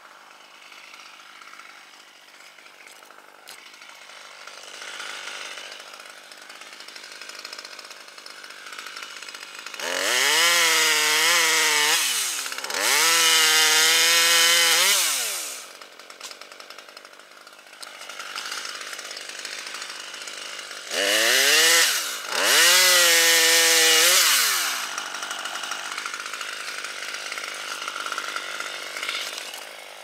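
Chainsaw run up to full throttle in four bursts, in two pairs. Each burst rises in pitch, holds and then drops back to idle.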